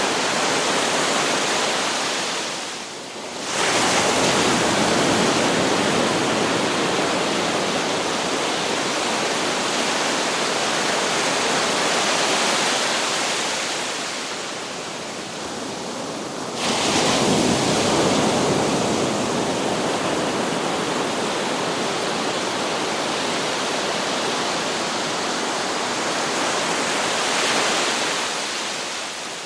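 Sea waves breaking on a beach: a continuous wash of surf that swells and ebbs, with a fresh wave crashing in about three and a half seconds in and another at about seventeen seconds.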